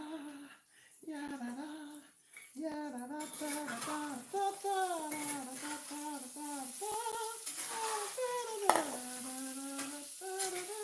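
A voice humming a tune in long, gliding held notes, over the light clink and scrape of a spatula working in a mixing bowl as egg white is folded into waffle batter. A sharp knock about nine seconds in.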